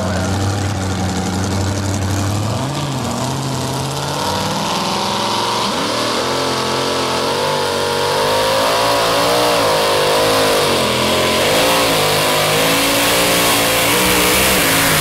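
Supercharged engine of a modified two-wheel-drive pulling truck running steadily, then revving up as the truck launches and pulls the sled. Its pitch rises and falls repeatedly under the load, and it gets louder in the second half.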